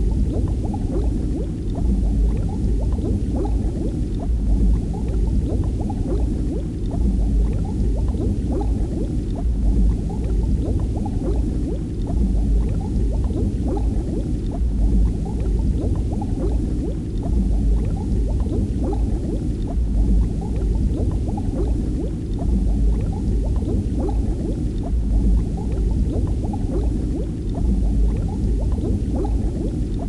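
Water bubbling and gurgling steadily, low-pitched, with many small pops throughout.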